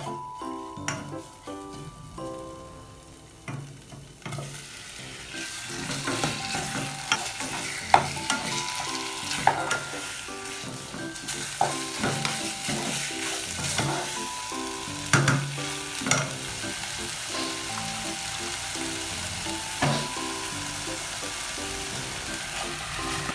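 Food sizzling as it fries in a pan, growing louder about four seconds in, with the knocks and scrapes of a utensil stirring it every few seconds.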